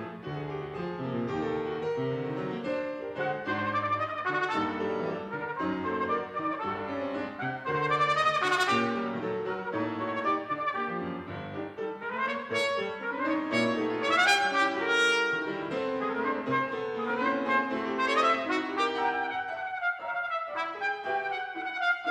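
Trumpet and piano playing a fast, busy classical passage together, the trumpet breaking into several quick rising runs over the piano accompaniment.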